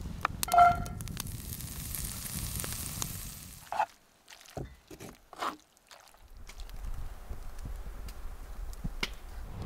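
Cooking in a cast-iron skillet: a light sizzle, with tongs clinking against the pan. One ringing clink comes about half a second in, and a few more short clinks follow around the middle.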